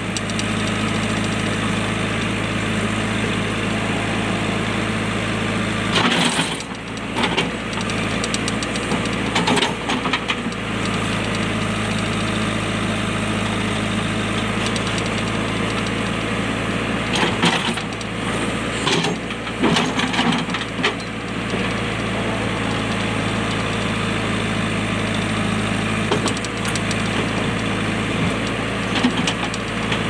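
JCB backhoe loader's diesel engine running steadily while its rear digging bucket works at a rock in the soil, with short bouts of scraping and knocking from the bucket against stone and earth several times.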